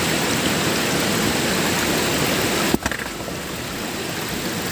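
Shallow stream water rushing steadily over rocks, with a brief break a little after halfway.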